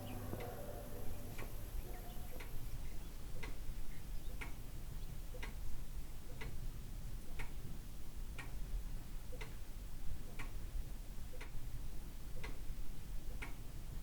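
Clock ticking steadily, about one tick a second, over a low background rumble.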